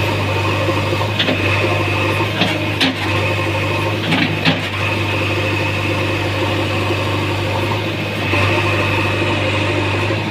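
JCB 3DX backhoe loader's diesel engine running at a steady speed, with a few short clicks and knocks about one, two and a half and four and a half seconds in.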